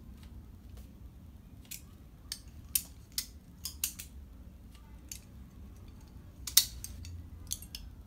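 Stainless-steel butterfly knife being flipped open and closed, its handles and blade clacking together in a string of sharp metallic clicks, about a dozen in all. The loudest clack comes about six and a half seconds in.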